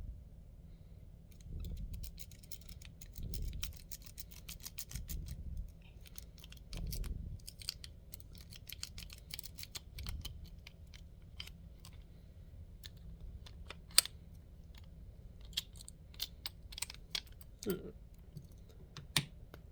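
Lock pick being worked in a lock's keyway: quick runs of fine metallic clicking and scraping as the pins are raked, with a few dull knocks from handling the lock. In the second half the clicks come singly and louder.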